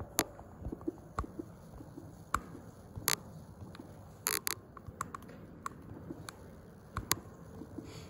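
Handling noise from a smartphone fitted with a clip-on telephoto lens: scattered sharp clicks and taps, with a quick cluster about four seconds in, over a faint steady background noise.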